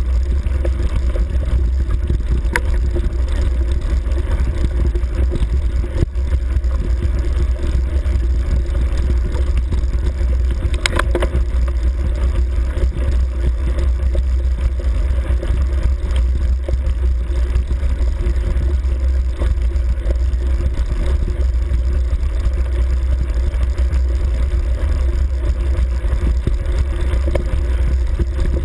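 A vehicle engine running steadily with a heavy low rumble as it travels along a bumpy grass track, with a few brief knocks, the clearest about 11 seconds in.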